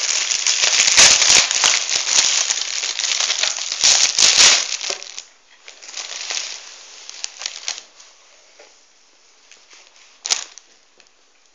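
Crinkly plastic donut packaging being opened and handled: loud, dense crackling for about the first five seconds, then softer rustling as a donut is taken out, with one sharp click near the end.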